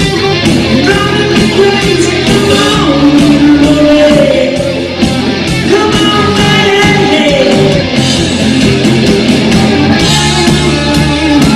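Live rock band playing loudly: electric bass guitar and drum kit with a male lead singer.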